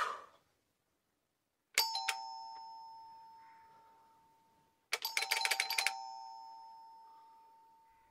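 Doorbell ringing twice. The first ring dies away slowly over about three seconds. The second is a rapid run of strikes that also fades slowly. A brief soft noise comes at the very start.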